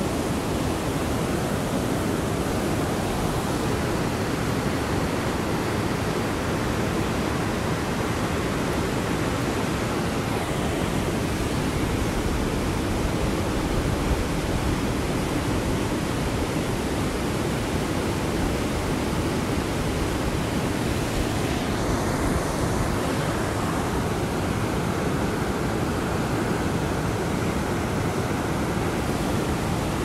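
A river rushing through whitewater rapids: a steady, unbroken rush of water.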